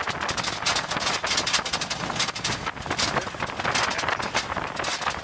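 Open-sided Land Rover Defender jolting and rattling over a rough, rocky dirt track, with many quick knocks and wind buffeting the microphone.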